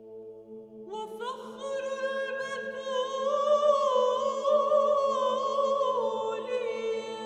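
Background music: a sustained drone chord, joined about a second in by a high, wavering melody line that swells and then eases off near the end.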